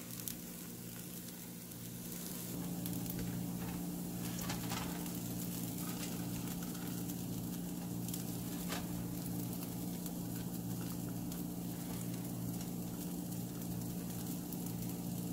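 Cooked poha being served from a nonstick pan onto a paper plate, with a few light clicks and scrapes of the utensil against the pan, over a steady kitchen hum that gets a little louder about two and a half seconds in.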